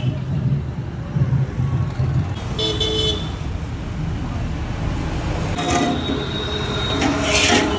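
Busy road traffic with a steady low rumble of engines and vehicle horns honking: a short honk about three seconds in and another, longer one near six seconds. A loud noisy rush comes near the end.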